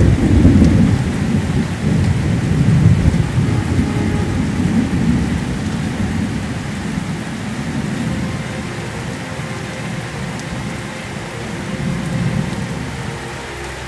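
Thunderstorm with heavy rain. A thunderclap breaks right at the start and rumbles on for several seconds, slowly fading, with a second, smaller roll of thunder near the end, all over a steady hiss of rain.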